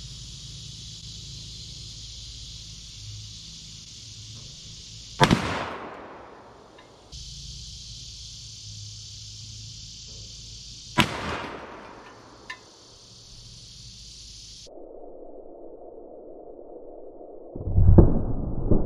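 Three loud revolver shots from a Smith & Wesson Model 500 firing 370-grain lead .500 S&W Magnum loads, each a sharp blast with a trailing boom, about six seconds apart.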